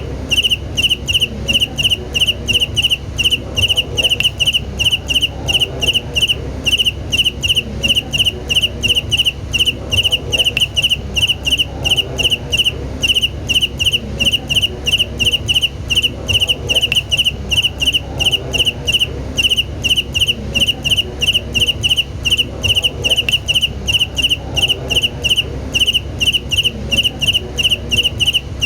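A cricket chirping in an even, steady rhythm of short, high chirps, about three a second, over a faint low background rumble.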